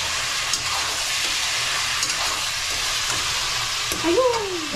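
Chunks of meat sizzling as they fry in a pan, stirred with a metal spoon that gives a few light scrapes and ticks. A person's voice comes in near the end.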